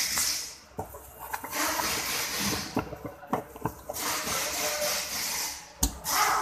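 Rustling and rubbing handling noise with scattered clicks, and one sharp knock near the end.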